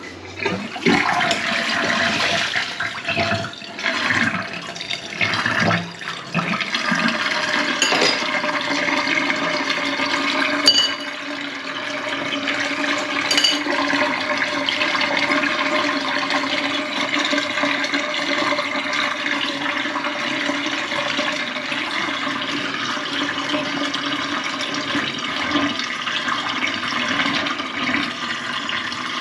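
Water running and rushing steadily in a stainless-steel kitchen sink, with a low steady tone under it. There are a few knocks and splashes in the first several seconds.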